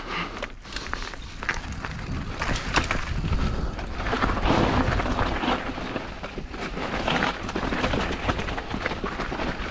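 Mountain bike riding down a loose, rocky trail: the tyres crunch over gravel and stones with frequent clicks and rattles, over a steady low rumble of wind on the microphone.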